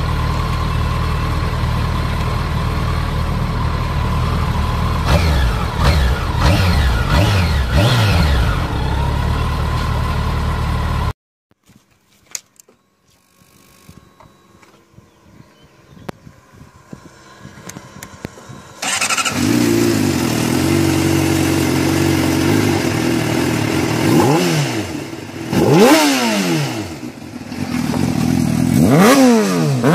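Kawasaki ZX-14R inline-four sportbike engine idling, with a few quick rev blips, then breaking off abruptly about a third of the way through. After a quiet pause, a Honda CBR sportbike fitted with a Yoshimura aftermarket exhaust starts and idles, revved in short blips near the end.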